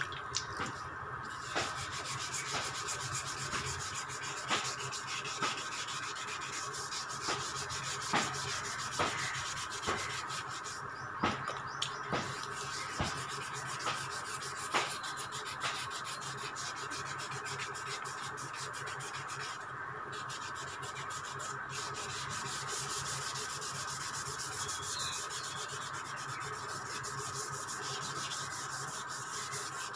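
Sandpaper being rubbed by hand over a scooter body panel in steady, rapid strokes, the sanding that prepares the surface for spray paint. There are scattered sharp clicks through the first half.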